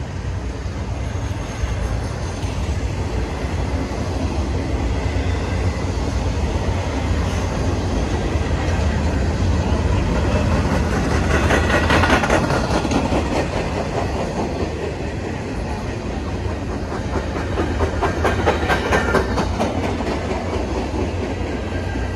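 Empty intermodal well cars of a freight train rolling past: a steady low rumble of wheels on rail, with clattering wheel clicks that swell twice, around the middle and again near the end.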